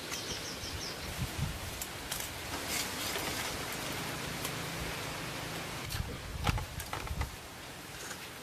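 Outdoor hiss with scattered light clicks and knocks as split bamboo slats are handled and set on a log-frame platform.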